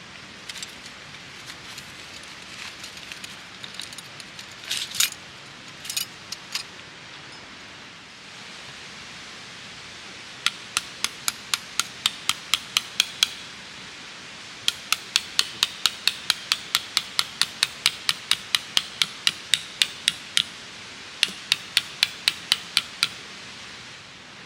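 Rapid, even hammer strikes, about four a second, in three runs of a few seconds each, after a few scattered knocks and rustling in the first seconds.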